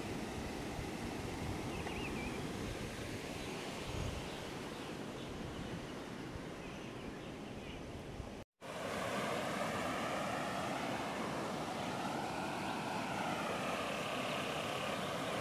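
Steady rushing of a river in flood, its muddy water churning in rapids. The sound drops out for a moment a little past halfway and comes back louder.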